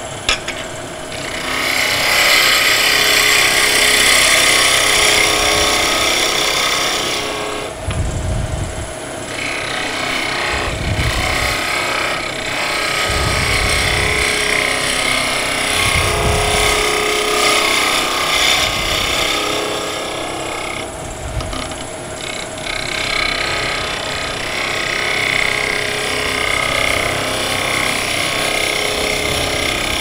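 Spindle gouge cutting a small spindle of wood turning on a lathe, rounding over its end: a steady shaving hiss. It breaks off briefly twice, about 8 and 21 seconds in, as the tool comes off the wood. A few dull low thumps come in the middle stretch.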